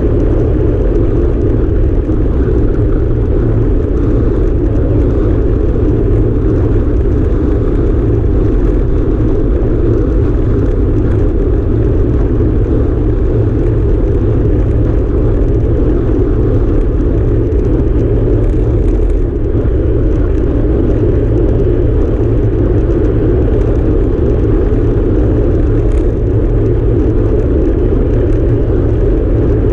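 Steady wind rush buffeting the microphone of a handlebar-mounted camera on a road bike riding at speed, mixed with the low hum of tyres rolling on asphalt.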